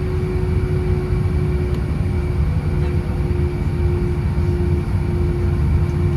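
Cabin sound of an Airbus A320 with its jet engines running: a steady low rumble with a constant hum over it.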